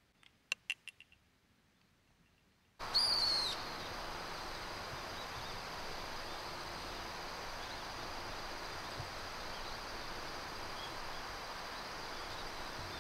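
A quick run of five or six sharp chirps sounds in near quiet, and then about three seconds in a steady open-air countryside hiss cuts in. It opens with one bird's falling whistle, and faint steady high-pitched tones run under it.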